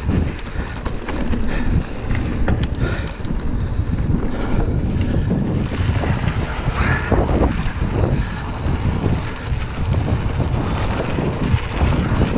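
Wind buffeting the action-camera microphone over the steady crunch of mountain-bike tyres rolling fast on a gravel trail, with frequent short knocks and rattles from the bike bouncing over stones.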